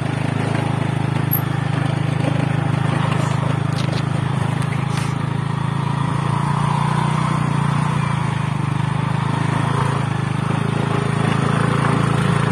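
Motorcycle engine running steadily while riding, a low even drone that holds throughout.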